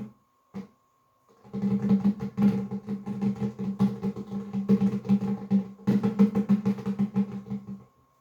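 A short stretch of instrumental music with a steady beat of repeated strokes over low sustained tones. It starts about a second and a half in and stops shortly before the end, with a brief break near six seconds. Two single clicks come before it.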